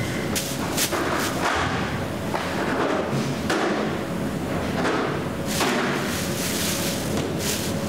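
Clear plastic bags of minced meat rustling and crinkling as they are handled, with dull thuds at irregular intervals, over a steady hum.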